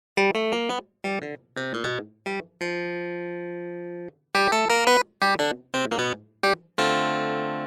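Background music: a melody of short, bright, plucked or keyboard-like notes in quick phrases with brief gaps, and two longer held notes, one about two and a half seconds in and one starting near the end.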